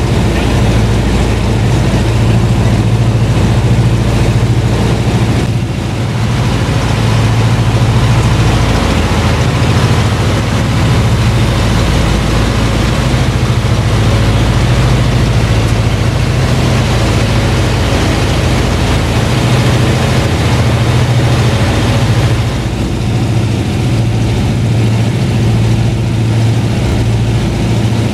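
Junkers Ju 52 trimotor's radial engines droning steadily in cruise flight, heard from inside the corrugated-metal cabin, a low even hum mixed with rushing air noise.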